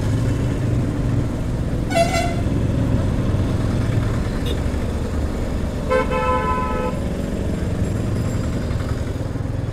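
Motorcycle engine running with road noise while riding in traffic. Two vehicle horn toots sound over it: a short, higher one about two seconds in and a longer, lower one about six seconds in.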